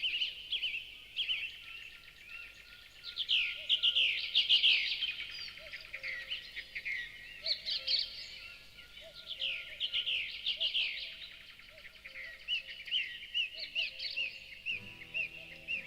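Small birds singing, a dense chorus of quick downward-sweeping chirps and trills in clusters. Music comes in near the end.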